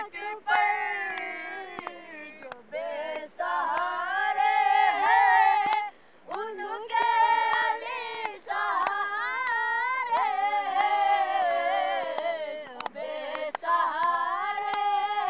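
A group of boys singing an Urdu qasida in praise of Mola Ali, unaccompanied, in long sung phrases broken by short pauses for breath.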